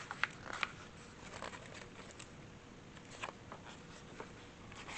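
Faint paper rustles and a few light taps as the pages of a hardcover picture book are turned.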